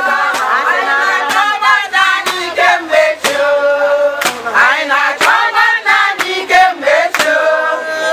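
A group of women singing together while dancing, with frequent sharp percussive strokes mixed in.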